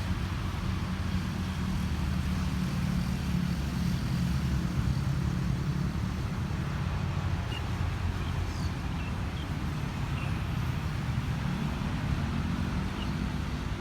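Diesel railcar engines of a THN/NKF commuter set running with a steady low rumble.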